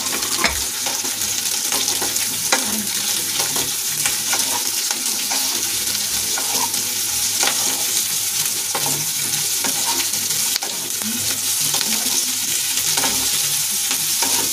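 Chopped onion and green capsicum sizzling in hot oil in a kadai, stirred with a wooden spatula that scrapes against the pan at irregular moments.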